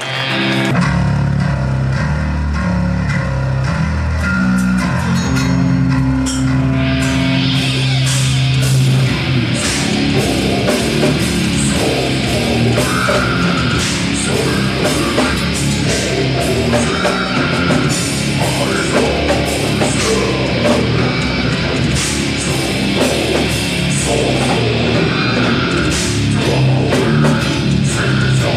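A live death metal band playing loud, with distorted electric guitars and bass. A riff with held notes opens, and about seven seconds in the drum kit and cymbals join with fast, dense hits that carry on under the guitars.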